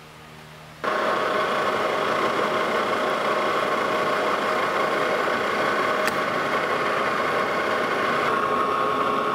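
Lodge & Shipley metal lathe starting abruptly about a second in, then running steadily with a hum and a few steady tones from its motor and headstock gearing as it turns down a small shaft held in the chuck.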